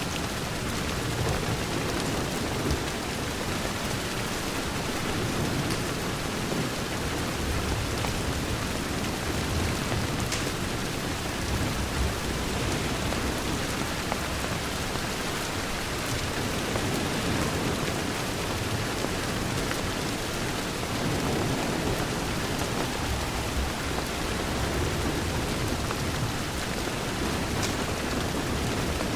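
Steady rain on a window, with a low rumble underneath and a few faint crackles from a fireplace.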